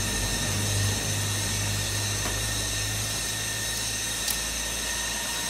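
Concrete block-making line machinery running steadily: a low hum under a constant hiss and high whine. The low hum fades near the end, and there is a single sharp click about four seconds in.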